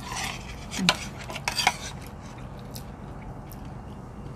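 Metal spoons and forks clinking and scraping on plates during a meal, with a few sharp clicks in the first two seconds, then quieter.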